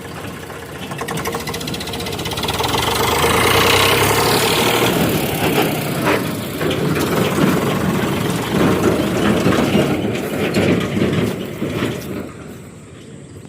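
Tractor engine running close by, growing louder over the first few seconds, holding with a rattly, knocking texture, then fading toward the end.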